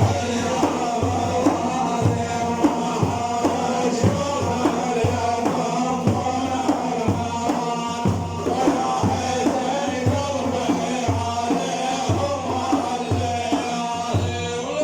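Arabic madih music: an instrumental passage with a steady, regular drum beat under a sustained melodic line.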